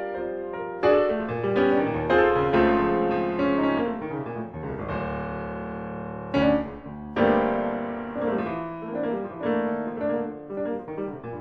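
Solo piano music, chords and runs of struck notes ringing out, with strong chords struck about a second in and again around six and seven seconds in.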